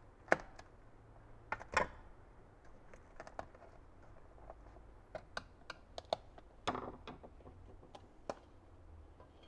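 Flat-blade screwdriver prying apart the rusted inner and outer pans of a 1966 Schwinn Stingray banana seat: scattered sharp metal clicks and scrapes, at an uneven pace, with the loudest clicks in the first two seconds.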